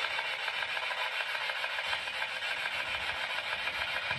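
A steady hiss with no distinct events.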